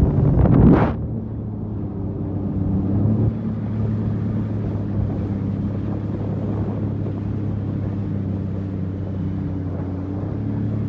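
Sea-Doo GTX 300 personal watercraft engine running with a steady drone. A short loud rush of noise comes about half a second in.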